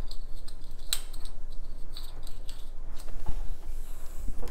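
Plastic miniature sprues and packaging being handled: scattered rustling and light clicks, with one sharper click about a second in, over a steady low hum.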